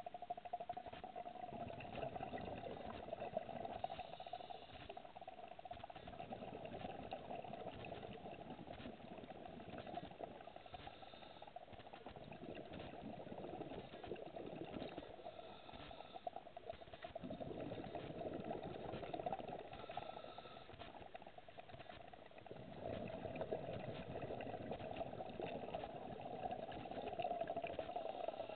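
Scuba diver breathing through a regulator underwater, heard through the camera housing: exhaled bubbles bubbling out in long stretches about four times, several seconds apart, over a steady underwater hum.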